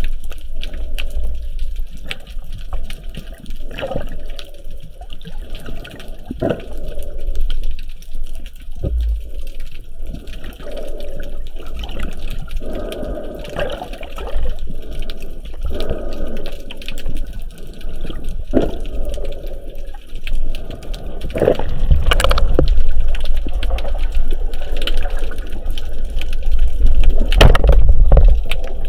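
Sea water sloshing and gurgling close to the microphone over a constant low rumble, with irregular surges that are loudest about three-quarters of the way through and again near the end.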